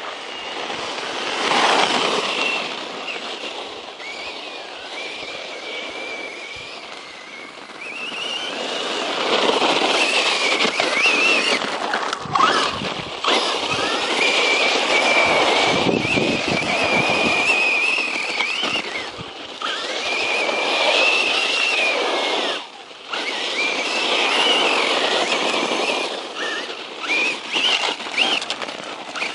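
A 1/10-scale RC truck's brushless electric motor whining at high speed, its pitch rising and falling with the throttle, over the rattle of the tyres and drivetrain on the ground. The whine drops out briefly a few times where the throttle is let off.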